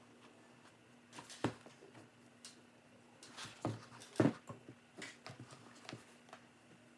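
Scattered light knocks, taps and rustles from handling a paintbrush and a cleat on a paper towel, the loudest knocks a little after one second and about four seconds in, over a faint steady hum.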